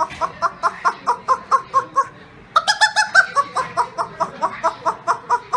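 A woman imitating an animal or bird call with her voice: a rapid run of short, pitched calls, about five a second, with a fresh, louder run starting about two and a half seconds in.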